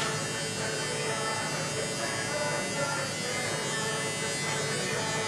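Electric hair clippers buzzing steadily during a haircut.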